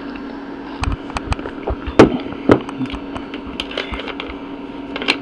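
Telephone line on hold during a call transfer: a steady hum and line noise with scattered clicks and knocks, the loudest about two seconds in.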